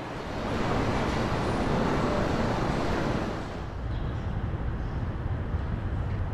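Steady machinery noise with a low hum underneath. About three and a half seconds in it changes to a duller, lower hum.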